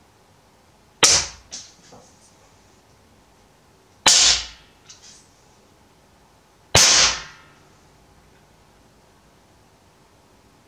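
Three sharp shots from an Artemis (SnowPeak) PP750 PCP air rifle fired through a homemade 3D-printed moderator, about three seconds apart, with a fourth just beginning at the very end. Fainter knocks follow the first two shots.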